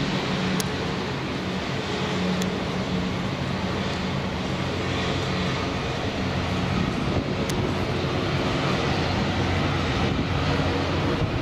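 Twin pusher turboprop engines of a Piaggio P.180 Avanti running at taxi power: a steady low hum over a broad, even rush of engine noise.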